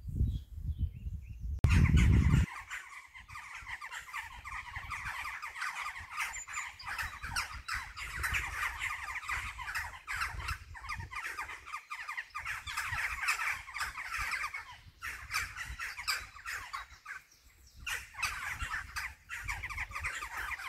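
A colony of birds nesting in holes in the cliff, calling continuously with many short overlapping calls. A low rumble is heard in the first two seconds.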